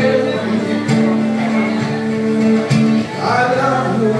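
Acoustic guitar strummed live, with a man singing over it in long held notes.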